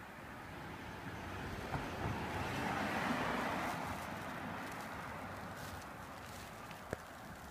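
A car going by on the street, its noise swelling to a peak about three seconds in and then fading away. A sharp click near the end.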